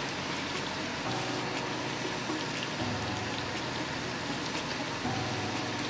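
Battered tempe slices deep-frying in hot oil, a steady sizzle with small crackles. Faint background music plays underneath.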